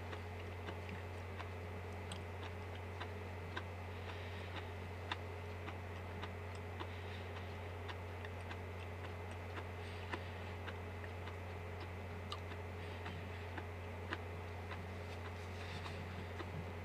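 Quiet eating at a desk: small irregular clicks of chewing and handling food, with a few brief rustles, over a steady low electrical hum.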